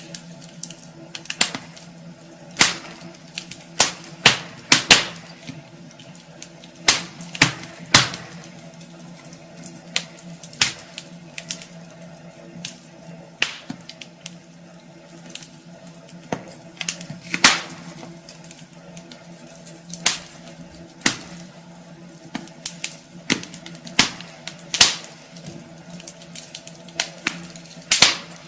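Wood fire in a fireplace crackling, with irregular sharp pops and snaps, some louder than others, over a low steady hum.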